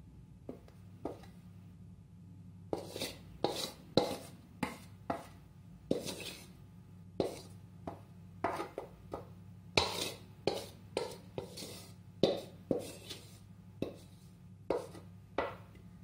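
Wooden spatula scraping and knocking against a metal pan as stir-fried vegetables are pushed out into a bowl: two faint strokes about a second in, then a quicker run of short scrapes, roughly one or two a second. A low steady hum underneath.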